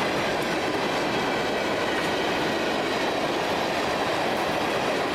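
Freight cars of a passing train rolling by: a steady rolling noise of steel wheels on rail with the rattle of the cars.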